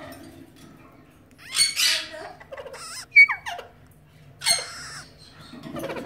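Parrot calls: two harsh rasping squawks about a second and a half and four and a half seconds in, with short falling whistled notes between them.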